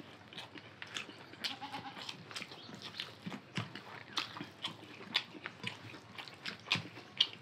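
Close-up eating sounds of two people eating rice and chicken curry by hand: irregular wet smacks, chewing and small clicks.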